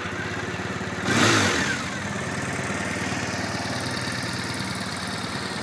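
A 2005 Triumph Bonneville T100's 865cc air-cooled parallel-twin engine idling steadily, with one brief throttle blip about a second in that rises and settles back to idle.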